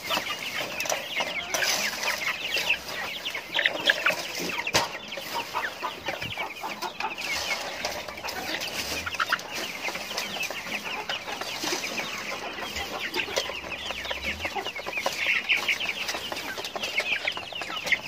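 A row of caged chickens clucking and chirping continuously as they feed at a trough, with scattered sharp taps among the calls.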